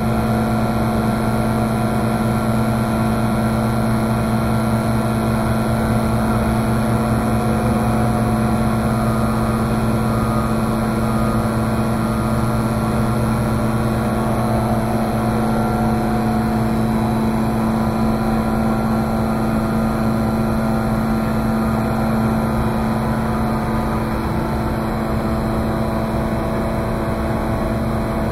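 Electric water booster pump, a motor driving a brass pump head, running steadily with a constant hum and whir.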